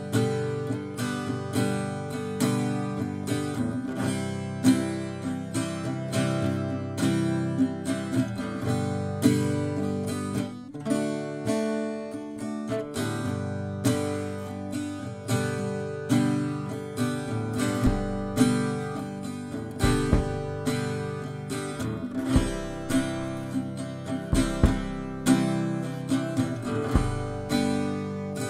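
Harmony parlour acoustic guitar strummed in a steady rhythm, a recorded playback through a Chilton QM3 Class A mic preamp. From about two-thirds of the way through, a drum kit's bass drum thumps in with the guitar. Near the end the playback switches to the same take through a Yamaha 1202 mixer's preamps.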